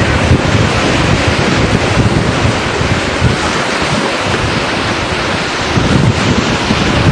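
Wind buffeting the microphone over the steady wash of small waves breaking on a beach, with a heavy low rumble.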